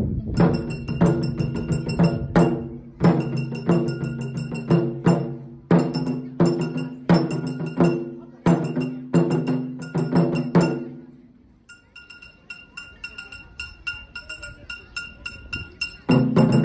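Japanese taiko drum ensemble playing a steady beat of sharp strikes. About eleven seconds in the drumming drops away to quieter, light fast tapping over a held high ringing tone, and the full drums come back in near the end.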